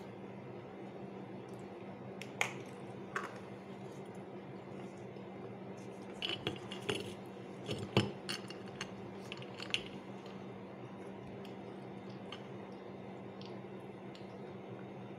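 Chunks of roasted clay and shale stone set down and shifted in a ribbed glass bowl: scattered clinks and light knocks, two early on and a cluster in the middle, with the loudest about eight seconds in, over a steady low hum.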